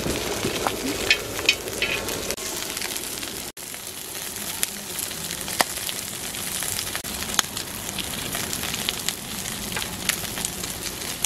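Beef intestines (gopchang) sizzling steadily on a hot griddle, with sharp clicks of metal tongs and kitchen scissors as the pieces are turned and cut.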